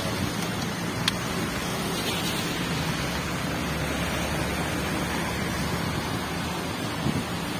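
Steady hiss of rain, with a single short click about a second in.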